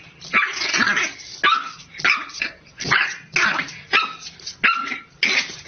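A puppy barking repeatedly at its own reflection in a mirror: short, rough, high barks, about eight in a row, one every half to three-quarters of a second.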